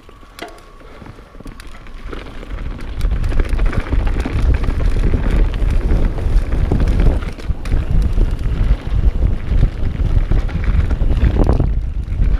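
Wind buffeting a chest-mounted action camera's microphone as a mountain bike speeds down a dirt trail, mixed with tyre rumble and scattered clicks and rattles from the bike. It builds over the first three seconds as the bike gathers speed, then stays loud.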